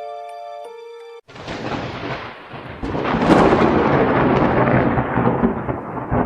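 Melodic music with held notes stops about a second in, and a thunderstorm takes over: a rolling rumble of thunder over rain, swelling louder about three seconds in and staying loud.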